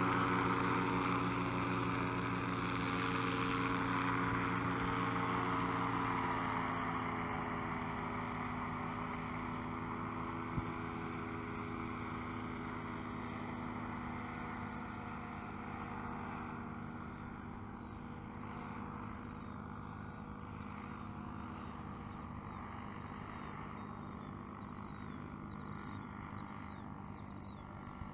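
Engine and propeller of a Blackhawk Lowboy III paramotor trike droning steadily as it flies past. The pitch drops a little about six seconds in, and the sound slowly fades as it moves away.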